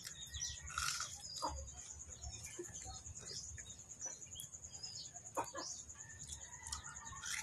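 Faint background of scattered short bird calls and clucks, with a steady, rapid high-pitched trill.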